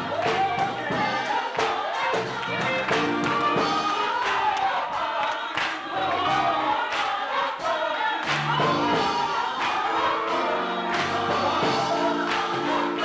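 Gospel choir singing, with hand claps from the standing congregation keeping a steady beat.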